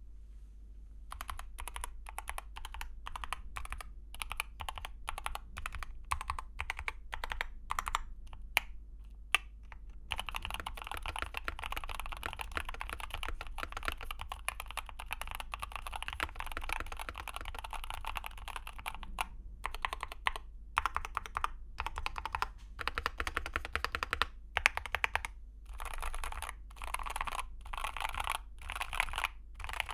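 Typing on a Keychron K8 HE magnetic keyboard with stock Gateron Nebula double-rail linear magnetic switches and OSA-profile double-shot PBT keycaps. Separate keystrokes for the first ten seconds or so, then fast continuous typing, broken by short pauses in the last third.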